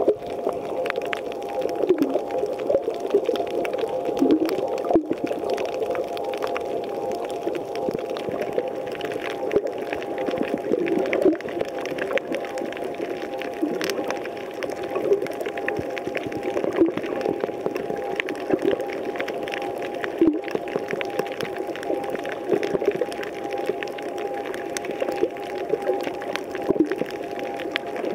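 Underwater sound on a coral reef: a steady hum of several held tones, with frequent faint clicks and crackles.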